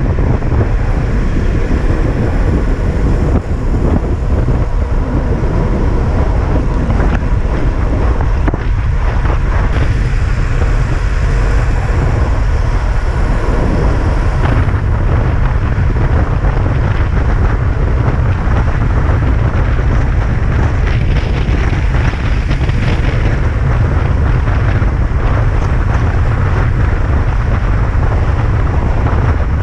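Wind buffeting on the microphone of a bicycle action camera as the road bike rides at speed: a loud, steady, low rumble with no breaks.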